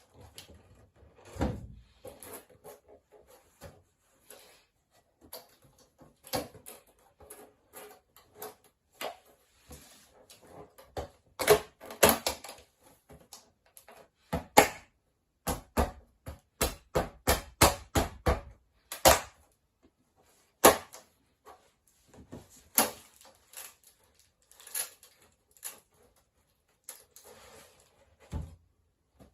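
Irregular sharp knocks and taps of hands working on a wooden shoji frame, with a quick run of about eight knocks around the middle.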